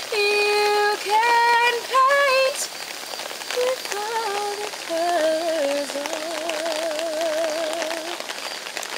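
A woman singing alone, holding notes with vibrato; she is loudest in the first two or three seconds and softer after, ending on a long held note. Rain patters steadily beneath the voice.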